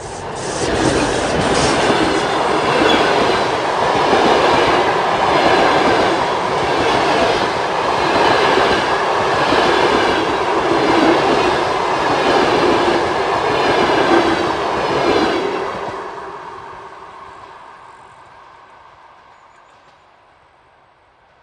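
Train passing close by, its wheels clattering in a regular rhythm over the rails. It is loud for about fifteen seconds, then recedes and fades away.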